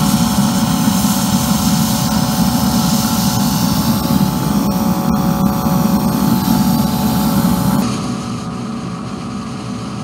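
Diesel-fired micro steam boiler running on low: the steady noise of its burner together with the hiss of a steam jet blowing from a brass nozzle. About eight seconds in the sound becomes quieter and duller.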